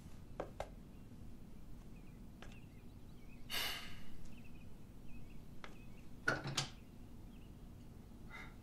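Faint footsteps and soft clicks in a quiet room, with a short breathy noise about three and a half seconds in.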